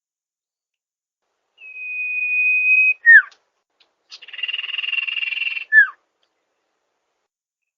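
Sirtu bird song played as a masteran recording: a long, steady high whistle followed by a quick downward note, then a buzzy rattling trill that ends in another quick downward note.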